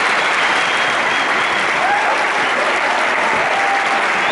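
Large audience applauding, a steady dense clapping with a few voices calling out over it.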